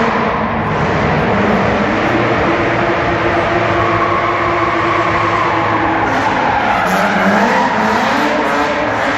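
Drift car engine revving hard with tyres squealing through a slide in an indoor hall. The engine pitch dips and climbs again about two-thirds of the way through.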